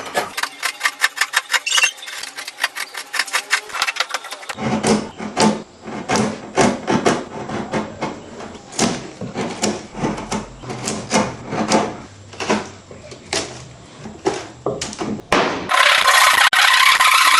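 Hand tools striking wood in a rapid run of taps, then slower, heavier knocks about two a second, typical of a mallet driving a chisel. Near the end a continuous rasping of a tool on wood begins.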